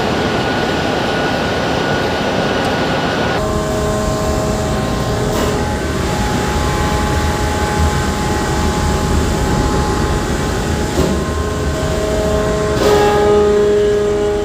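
A machine's engine running steadily. About three seconds in, the sound changes abruptly to a low rumble with several steady whining tones over it.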